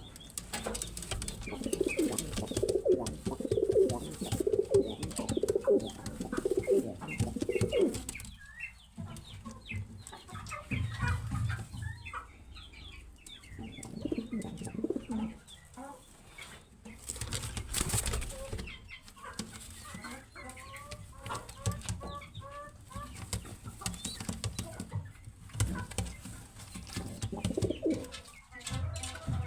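Frillback pigeons cooing in low, pulsing bouts: a long one at the start, another about halfway and one near the end. Short higher chirps and a few light clicks come in between.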